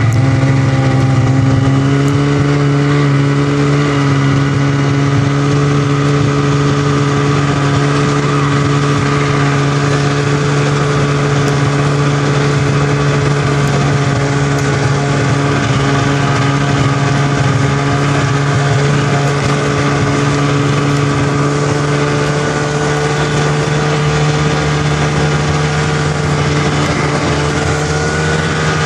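Snowmobile engine running loud and close at a steady cruising pitch while towing sleds, after climbing in pitch in the first moment.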